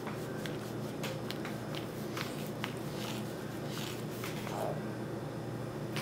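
Cat licking the inside of his clear plastic cone while his head is scratched: a run of irregular soft clicks and rasps of tongue on plastic, about two or three a second.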